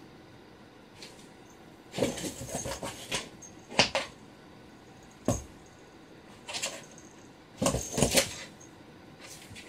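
Cardboard scraping, rustling and thumping as cats scramble into a box and paw at a loose cardboard sheet, in several short noisy bursts.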